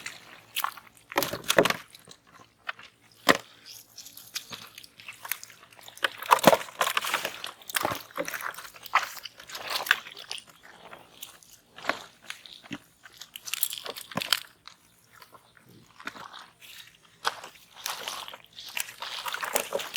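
Irregular wet crunching and squelching of mud and water as hands dig through a muddy canal bed for fish, with scattered sharp clicks and splashes.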